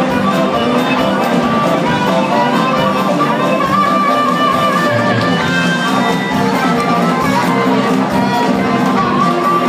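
Blues band playing live, loud and steady, with an amplified harmonica carrying the lead in long held notes that bend in pitch over a driving beat.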